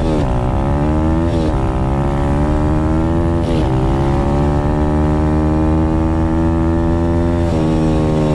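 Single-cylinder four-stroke dirt bike engine, heard from the rider's own bike, accelerating up through the gears: the pitch climbs and drops back at three upshifts in the first four seconds, then holds steady while cruising.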